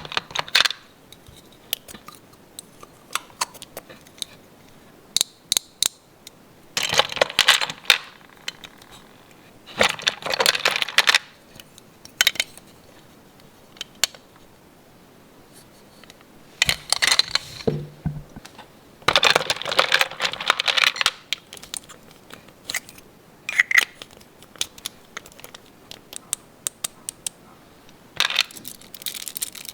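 Unboxing a Minnie Mouse washing playset: sharp clicks and taps of small plastic toy pieces being handled, with several bursts of rustling packaging, the longest about two thirds of the way in.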